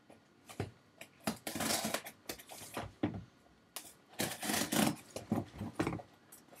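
A package being opened by hand: scattered short clicks and knocks, with two longer stretches of rustling and scraping, about one and a half seconds in and again about four seconds in.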